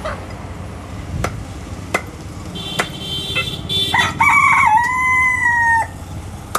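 A rooster crows once, a call of nearly two seconds starting about four seconds in, the loudest sound. Before it come a few sharp knocks of a cleaver chopping chicken on a wooden block.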